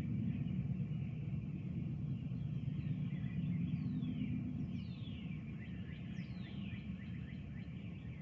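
A low, continuous rumble, swelling slightly midway and easing toward the end, under songbirds singing; several clear whistled notes slide downward in pitch in the middle.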